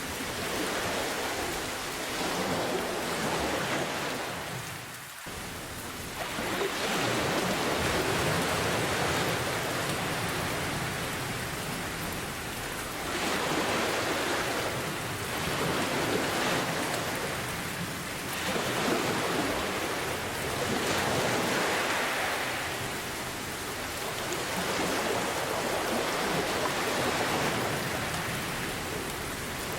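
Steady rain mixed with ocean surf, the rushing noise swelling and easing every four to six seconds as waves roll in, with a brief lull about five seconds in.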